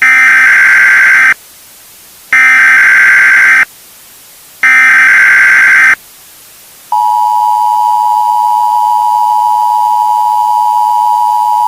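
Emergency Alert System tones: three identical bursts of digital data tones (the SAME header), each about a second and a half long with about a second's gap between them. About seven seconds in, the steady two-tone attention signal begins and holds.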